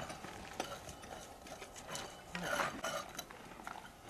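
Hand tools scraping and scratching dry soil and stone, with scattered small clicks and knocks. There is a louder stretch of scraping about two and a half seconds in.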